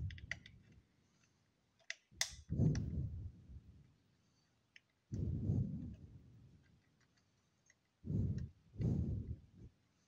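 Sharp clicks and about five dull low thuds as the push-pin fasteners of a stock Intel CPU cooler are pressed down into the motherboard.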